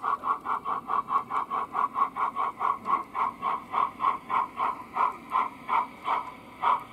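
Chuffing of an O gauge model A1X Terrier steam tank engine's sound unit, the even beats slowing from about six to about three a second as the train slows down.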